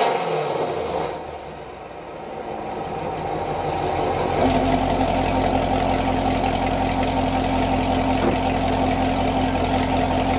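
Valved exhaust of a 2021 Camaro SS 1LE's 6.2-litre V8, with long-tube headers, catless piping, an X-pipe and stock NPP mufflers: a rev falls back to idle with the valves closed. About four and a half seconds in, the idle turns louder and steadier as the exhaust valves open.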